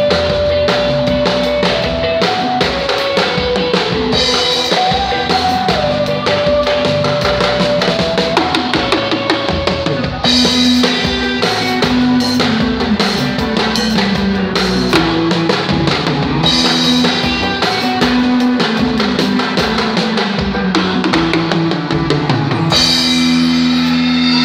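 Drum kit played hard inside a live band: kick, snare and cymbal hits driving a song, under a melody of held notes that step up and down. Near the end the drumming stops while the band holds a long chord.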